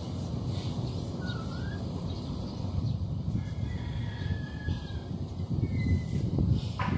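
Chickens in the open, with a rooster crowing faintly in the distance about halfway through and a couple of shorter faint calls around it, over a steady low rumble.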